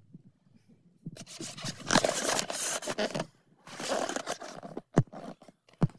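Scraping and rustling of things being handled and shifted about on a cluttered table during tidying, in two stretches, then two short sharp knocks near the end.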